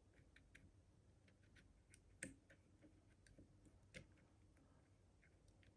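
Faint, irregular small clicks of a pick and tension wire working the levers inside an Easi-T lever lock, with two sharper clicks about two and four seconds in.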